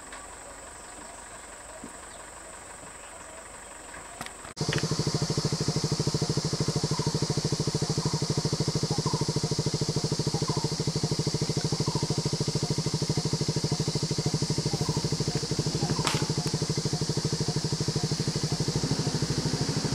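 A vehicle engine idling steadily, with a fast even pulse and a steady high hiss above it. It cuts in suddenly about four and a half seconds in; before that there is only a faint high whine.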